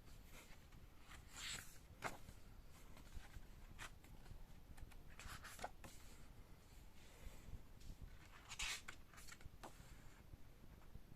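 Faint paper rustling and light handling clicks, a few brief ones scattered through otherwise near silence, as a paper booklet and packaging are handled.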